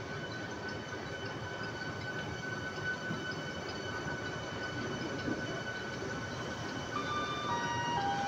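Vande Bharat train coaches rolling past along the platform as the train arrives, a steady rumble of wheels and running gear with a thin steady high whine. Near the end a few short falling chime-like tones sound over it.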